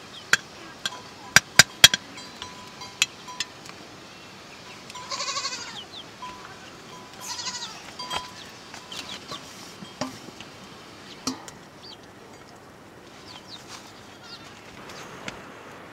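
A metal ladle clicks sharply against a pot several times in the first two seconds. A goat bleats twice, about five and seven seconds in.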